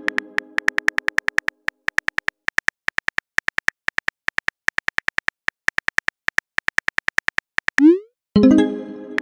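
Phone keyboard clicks from a texting-story app, rapid and uneven, as a message is typed for about seven and a half seconds. Near the end a short rising swoosh marks the message being sent, and a ringing synth chime follows.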